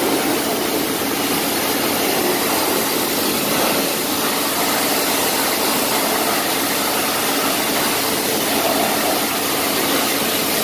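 Hot-water pressure washer spraying into a car's engine bay: a steady, loud hiss of the spray with a low, even hum from the machine underneath.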